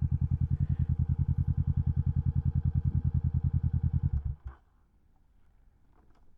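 2017 Kawasaki Vulcan 650 S parallel-twin idling with a steady pulse through a CS Racing aftermarket exhaust, then shut off about four seconds in, leaving near quiet.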